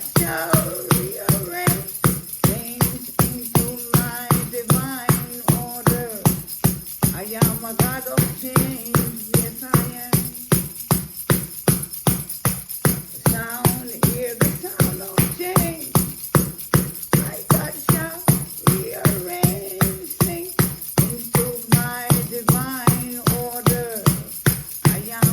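Music with jingle bells shaken in a steady beat, about three strokes a second, under a wavering melody that comes and goes.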